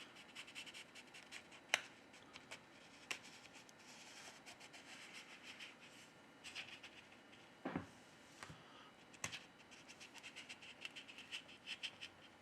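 Faint scratching of a plastic card being slid through the adhesive under a Samsung A9's back cover, with a few sharp clicks and taps.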